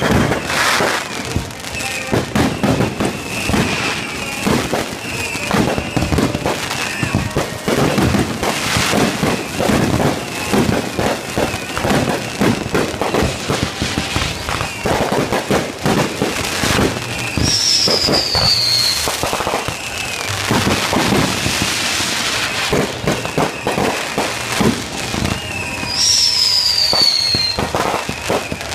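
Fireworks display: a rapid, continuous barrage of bangs and crackling, with a falling whistle from a whistling shell about two-thirds of the way in and another near the end.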